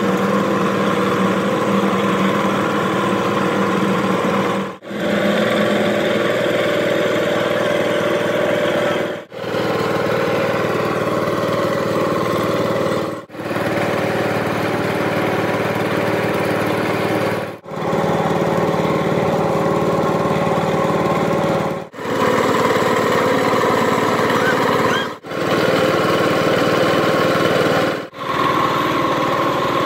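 A machine running steadily with a constant hum. The sound drops out briefly about every four seconds.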